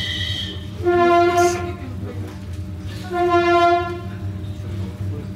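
A vehicle horn sounding twice, each a steady note just under a second long, about two seconds apart, over a steady low rumble. A higher, thinner tone dies away about half a second before the first note.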